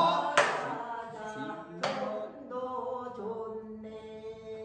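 Male pansori singer singing a drawn-out, ornamented line, which ends on a long held note that fades away near the end. Two sharp percussive strikes fall in the first two seconds.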